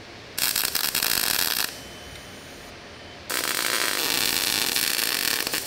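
Two loud bursts of hissing, rushing noise: a first one of a little over a second, then after a pause a longer one of about two and a half seconds.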